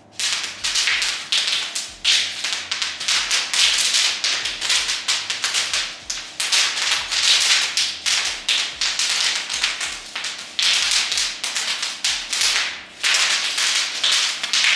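Bubble wrap popping under bare feet as someone walks across sheets of it: a dense, continuous crackle of many small pops, with a few brief lulls.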